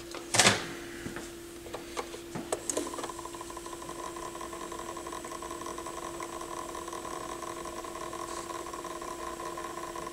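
Pioneer PL-707 turntable's motor and drive mechanism running with an unexplained rattle. A steady hum with a few light clicks and a knock gives way, about three seconds in, to a steady fine rattling buzz.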